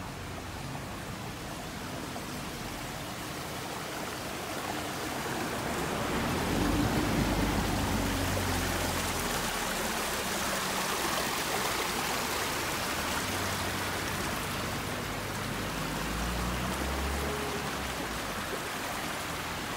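Running water of a small stream splashing over rocks, a steady rushing that grows louder about a third of the way in and then holds.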